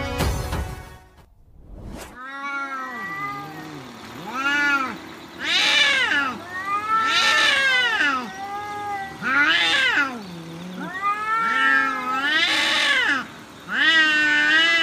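Two domestic cats, an orange cat facing a dark cat, yowling at each other in a territorial standoff before a fight: long caterwauls that rise, fall and waver in pitch, one after another with short gaps. A short stretch of music ends within the first second.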